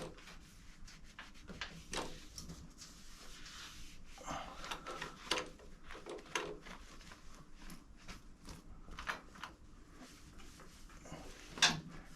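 Scattered light knocks and clicks of tools and parts being handled at a workbench, with one louder knock near the end.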